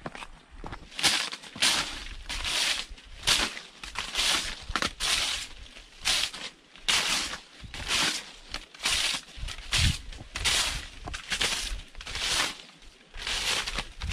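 Rhythmic swishing and scraping strokes, about two a second, as a leafy branch and a machete are swept and scraped over a rock surface to clear it of debris.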